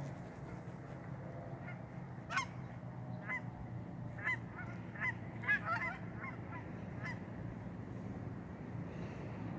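Geese honking: a run of short honks starting about two seconds in, busiest just past the middle, and stopping about seven seconds in, over a steady low rumble.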